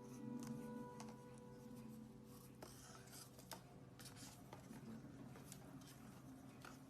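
Near silence: faint room tone with a low hum and a few small scattered clicks and scratches.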